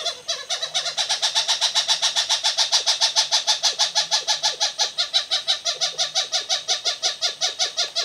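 Recorded wild animal call: a rapid, even series of short notes, about seven a second, kept up without a break.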